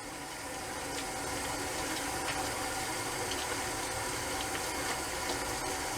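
Hot water running steadily from a tap as a shaving brush is rinsed out under it.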